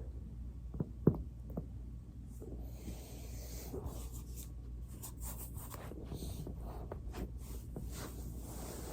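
Three quick joint pops about a second in, the middle one the loudest, as a body cracks on a foam roller. After that comes the soft rubbing of a body rolling over the foam, over a steady low hum.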